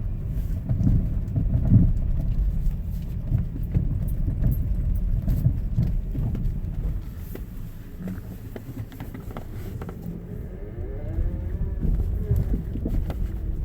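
Car running with a low rumble and an irregular knocking sound over it.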